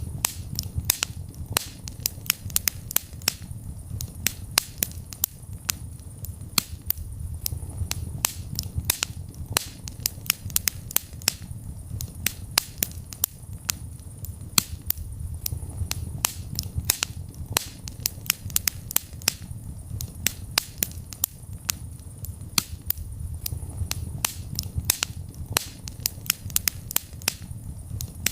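Wood fire crackling in a fireplace: frequent sharp, irregular pops and snaps, several a second, over a low, steady sound of burning.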